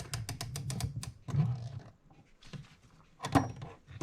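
Metal clicks and small knocks from handling a mechanical clock movement while its mainspring clamps come off: a quick run of clicks at the start and one sharper click a little past three seconds in.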